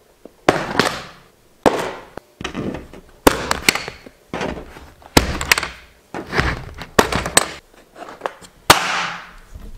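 Clear waterproof plastic tackle box being handled: its snap latches clicking and the lid and box knocking, about seven sharp snaps and knocks a second or so apart, each with a short fading tail.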